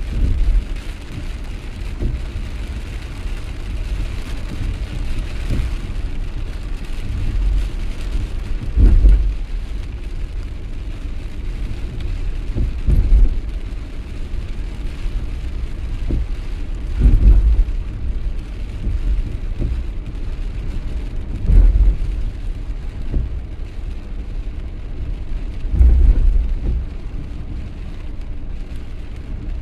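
Steady heavy rain, with a low rumble swelling up about every four to five seconds.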